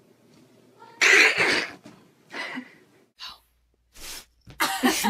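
Cat hissing in a run of short, sharp bursts, the loudest about a second in.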